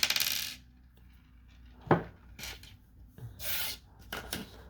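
Small tool rubbing and clicking against a padlock as a screw is worked out of it: a sharp click about two seconds in, short scraping rubs, and a few light clicks near the end.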